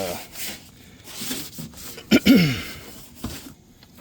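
A short, loud vocal sound from a person about two seconds in, falling in pitch, among a few scrubbing strokes of a brush.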